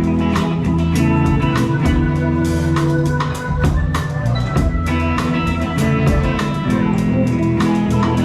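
Live band playing during a sound check: a drum kit keeps a steady beat, about two or three hits a second, under guitar and sustained low notes.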